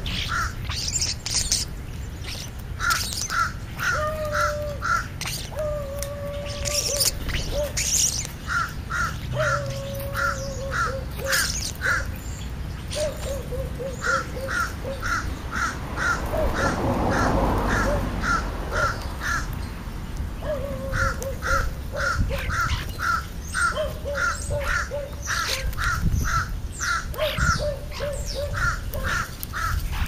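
American crows cawing, in quick runs of several caws at a time, repeated throughout.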